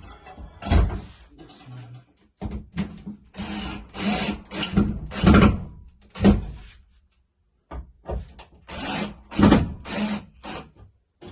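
Screws being tightened into a wall mount, a series of short scraping, grinding turns with brief pauses between them.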